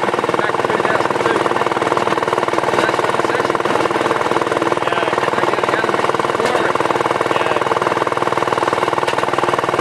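Small engine of a rail section car (speeder) running steadily under way along narrow-gauge track, with a fast, even pulsing beat.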